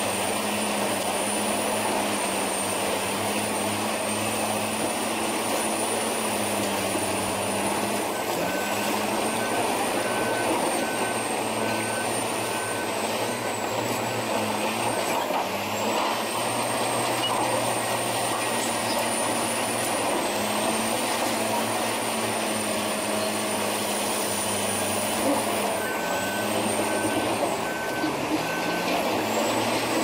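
Bulldozer diesel engine working steadily with a high whine over it, its pitch sagging briefly under load three times. A faint reversing alarm beeps in two stretches, about a third of the way in and again near the end.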